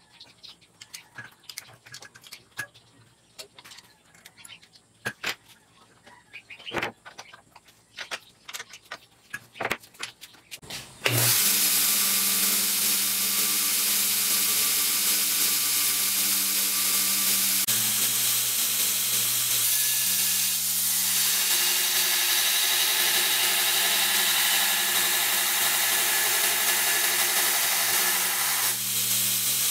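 Hand-adjustment clicks and knocks on a homemade belt sander built from a 1 hp bench grinder, then about eleven seconds in the motor switches on and runs steadily with a hum under the hiss of the 36-grit belt. Near the end the belt begins grinding a bar of 5160 leaf-spring steel.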